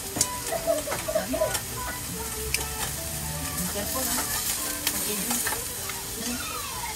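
Meat sizzling on a barbecue grill: a steady frying hiss with a few sharp clicks and pops, most of them in the first couple of seconds.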